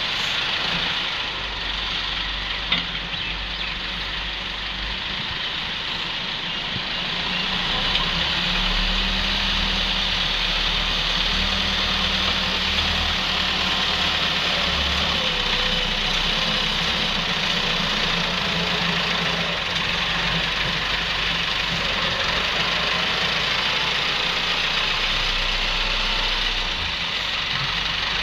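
Wheel loader's diesel engine running steadily as it works, getting a little louder about eight seconds in.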